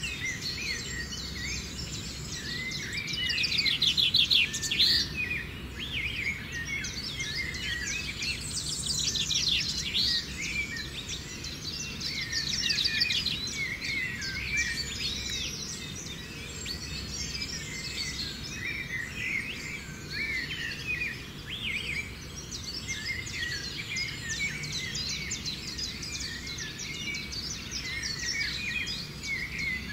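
Dense chorus of many birds chirping and calling, short rising and falling whistles overlapping without pause, with a fast trill about four seconds in.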